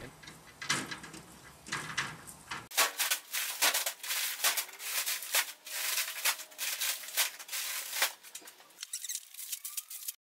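Plastic bags of potting soil rustling, crinkling and knocking in quick irregular strokes as they are handled and dropped into a garden cart.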